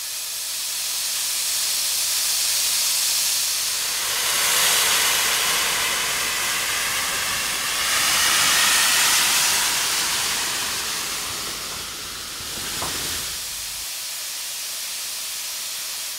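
Steam locomotive's cylinder drain cocks blowing open, a loud steady hiss of steam and water jetting out beneath the cylinders. This clears condensed water from the cylinders. The hiss swells twice and eases off toward the end.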